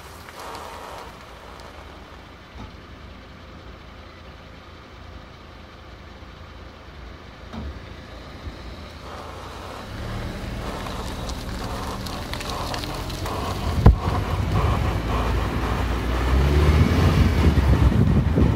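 2001 Audi A4 driving, with tire and road noise and a low droning hum that grows louder from about halfway as the car speeds up: the noise of a faulty tire. A single sharp click sounds near the middle.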